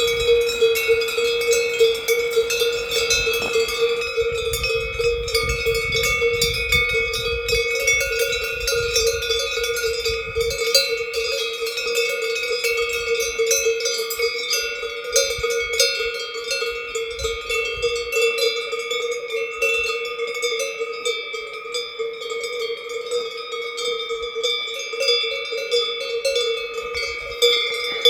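Several cowbells worn by a herd of Hérens cows, clanking and ringing continuously and irregularly as the animals move.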